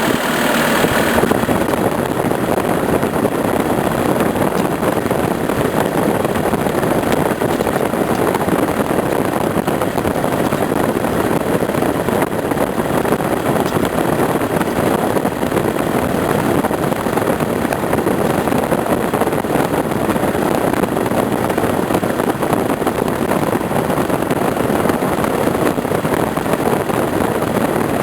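Skid steer engine running steadily.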